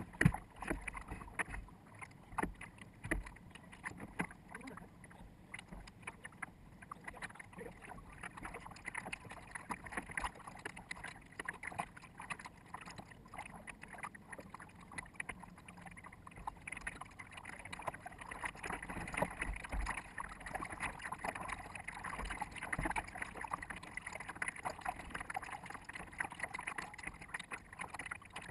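Water splashing and rushing along the bow of a sailboat under way, with wind on the microphone. The audio is sped up fourfold, so it comes out as a choppy, crackling hiss.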